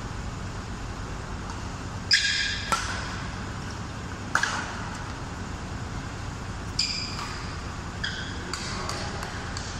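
Badminton rally: sharp racket strikes on the shuttlecock a second or two apart, with brief high squeaks of court shoes on the floor, the loudest strike and squeak about two seconds in.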